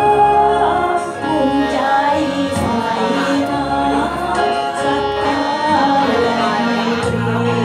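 A singer singing a Thai song into a microphone over a karaoke backing track, the voice amplified through the room's speakers.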